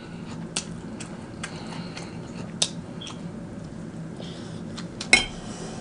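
Eating sounds: a plastic fork clicking against a plate and the mouth taking a bite, a few separate sharp clicks with the loudest near the end, over a faint steady low hum.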